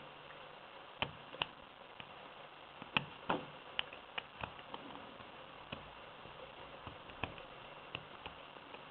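Small, irregular metallic clicks and ticks from a dimple pick working the pins of a UCEM dimple lock cylinder, about a dozen spread unevenly, a few louder than the rest.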